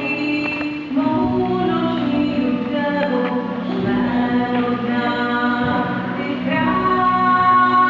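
Small mixed vocal group singing in harmony, a woman's voice at the front.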